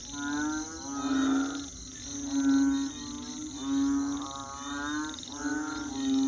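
Frogs calling in a chorus of long, pitched, buzzy croaks, about one a second, over a steady high chirring of crickets.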